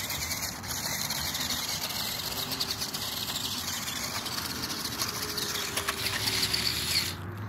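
A $25 toy RC buggy's small electric motor and gears whining faintly as it climbs a loose dirt and gravel bank, with many small clicks and scrabbling of its wheels on the gravel.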